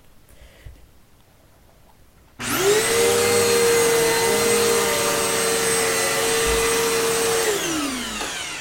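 2008 Hoover Elite Rewind upright vacuum cleaner switched on about two and a half seconds in: the motor spins up with a quickly rising whine and runs steadily for about five seconds, then is switched off and its pitch falls as it winds down near the end.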